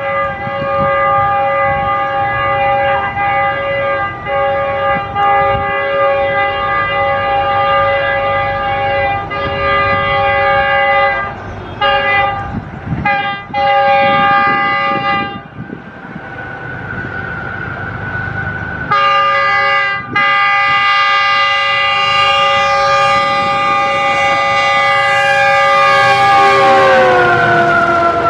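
Pakistan Railways GEU-40 diesel locomotive's air horn sounding long, held chord blasts as the train approaches, with short breaks about twelve seconds in and a fainter single note before the full chord resumes about 19 s in. Near the end the whole chord slides down in pitch as the locomotive passes close by.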